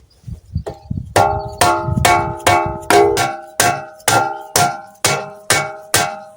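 Hammer blows on a steel suspension strut, each one ringing like a bell: about eleven strikes, roughly two a second, driving at a part seized in place after decades.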